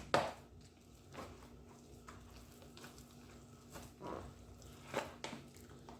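Faint, irregular soft knocks of a utensil against a bowl as yam flour and hot water are mixed into a dough, with a brief louder knock at the start.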